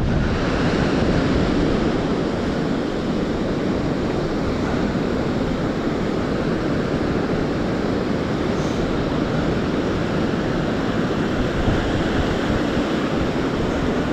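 Ocean surf breaking and washing up the sand: a steady rush of waves.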